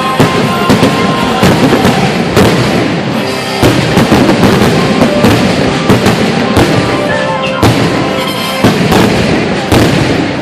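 Fireworks shells bursting in quick succession, several bangs a second, over the show's music.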